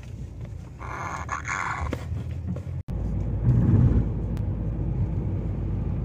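Car driving on the road, heard from inside the cabin: a steady low engine and road rumble that starts suddenly about three seconds in and swells briefly just after. Before it comes a short harsh noise lasting about a second.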